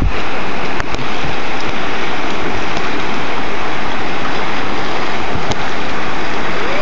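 Steady rushing of whitewater in a river rapid, with a few brief knocks near the start and once more late on.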